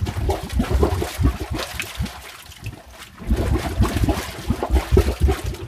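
Methane gas bubbling up through water from under the ground, a deep irregular gurgling that comes in two spells with a short lull between them. It is the sign of a methane leak rising from below, the sound that locals fear.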